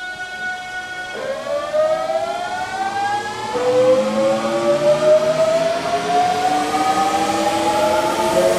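Hankyu 8000 series electric train accelerating, its VVVF inverter whining in several tones that climb steadily in pitch, drop back about a second in and again about three and a half seconds in, then climb again, over a growing rumble of the running train.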